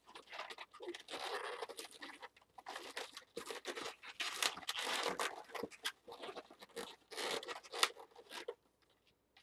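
Latex twisting balloons being twisted and pressed together by hand, the rubber rubbing and crackling against itself in irregular bursts.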